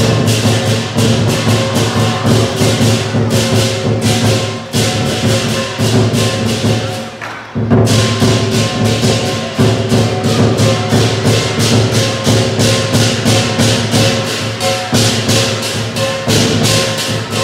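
Lion dance percussion: a big drum, clashing cymbals and a ringing gong play a fast, steady beat. The beat drops away briefly about seven seconds in, then comes back in full.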